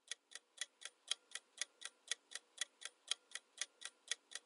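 Ticking clock sound effect marking a countdown timer, an even tick about four times a second.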